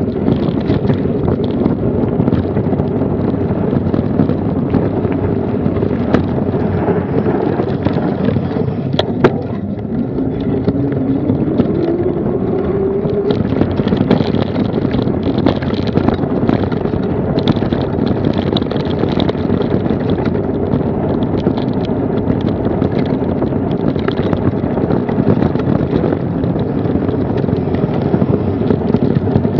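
Mountain bike descending fast, with wind rushing over the action camera's microphone, tyres rolling over gravel and tarmac, and the bike rattling and knocking over bumps. A short rising whine comes about ten seconds in.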